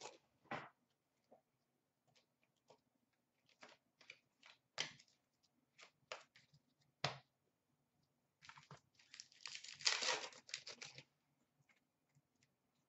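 Hockey card pack wrappers tearing and crinkling as packs are opened, with scattered light crackles and clicks from the cards being handled. A longer burst of tearing and crinkling about two-thirds of the way through is the loudest.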